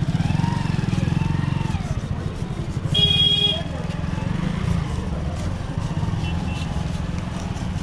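A motor vehicle engine running close by, a steady low rumble, with a short horn honk about three seconds in.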